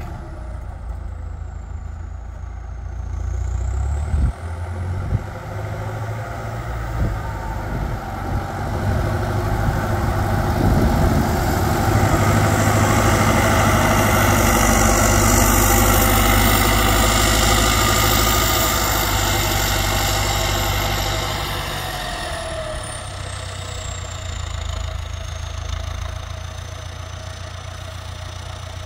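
Belarus MTZ 1025.4 tractor's turbocharged four-cylinder diesel running through a straight-pipe exhaust. It grows louder from about eight seconds in, holds for several seconds and eases off again after about twenty seconds.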